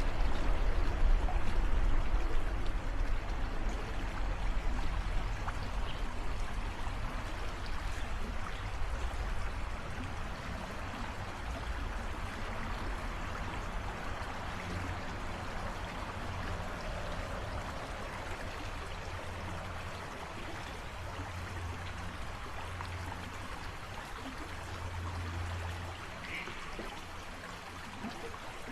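Shallow creek water flowing steadily around both sides of a small island, a continuous rushing and babbling. Under it there is a low rumble that is strongest at first and gradually eases.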